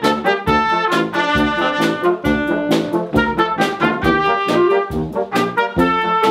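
Small brass band of trumpets, trombone, tuba and saxophone playing a lively Romani-style medley over a steady beat.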